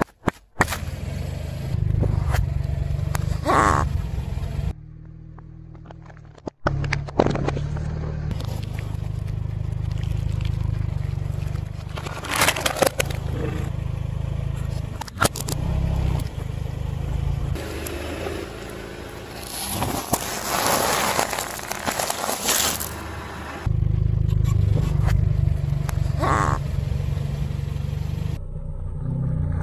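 A car tyre rolling slowly onto objects on asphalt and crushing them, in a string of short clips that cut abruptly one to the next. Crunching and sharp cracks, among them a large eggshell breaking under the tread, sound over the low rumble of the car.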